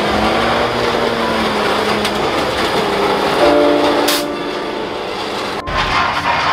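Lowered mini trucks dragging their frames on the pavement, making a rough, noisy scrape over engine noise. From about a third of the way in to nearly six seconds, a multi-note air horn of the train-horn kind blows a steady chord.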